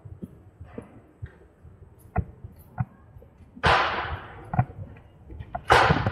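Electric scooter and its mounted camera knocking and rattling as it rolls over uneven street surface, with two hard jolts, one about halfway through and one near the end, each dying away over about a second.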